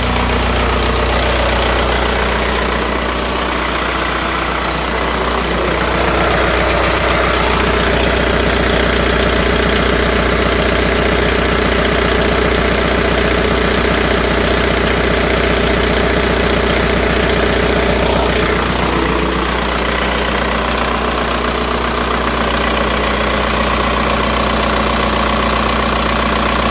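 1999 ALH 1.9 TDI four-cylinder turbodiesel running. About six seconds in it picks up to a faster, slightly louder run, holds it for about thirteen seconds, then settles back to idle. A thin steady whistle sits over the diesel clatter, which the owner thinks is the turbo.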